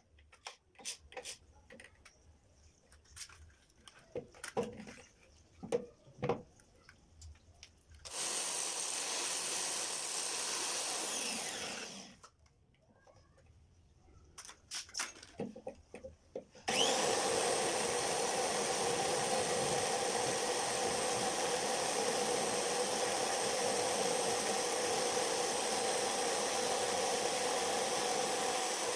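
Clicks and knocks of parts being handled, then a motor runs steadily for about four seconds and stops. After more clicking it starts again with a brief rising whine and keeps running at a steady speed.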